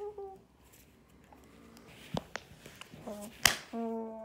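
A few sharp clicks of loose plastic LEGO pieces, the loudest about three and a half seconds in. Near the end a steady hum-like note starts and is held.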